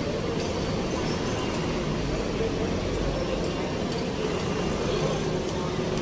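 Street traffic: a box truck's engine running as it pulls across close by, over a steady hum of passing vehicles, the low rumble strongest a couple of seconds in.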